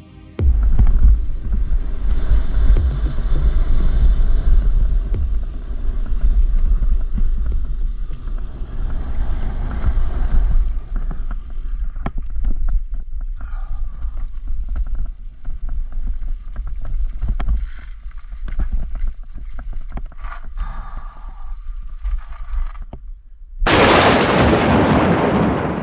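Mountain bike descending a dirt trail, heard from an action camera: wind buffeting the microphone over the rumble of tyres on dirt and the rattle and knocks of the bike. About two seconds before the end it gives way to a loud whooshing burst.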